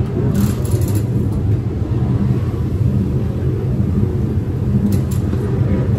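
A steady, loud low rumble of engines running, with no clear rise or fall.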